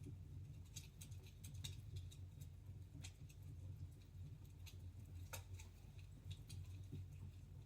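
Wood fire in a fireplace crackling faintly, with irregular scattered snaps and pops over a low steady rumble.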